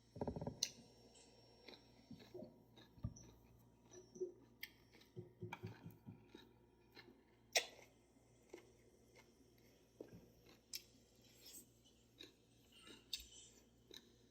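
Open-mouthed chewing: irregular wet smacks and crunchy clicks of food being chewed, with a short burst of low knocks at the very start.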